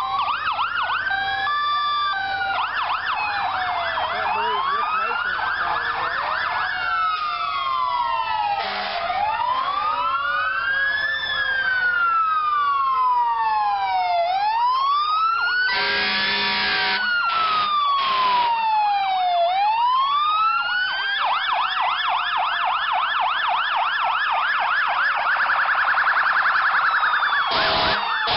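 Several fire truck sirens sounding at once. A wail rises and falls slowly every few seconds, overlapped by stretches of fast yelping sweeps. There are short loud blasts about two-thirds of the way in and again near the end.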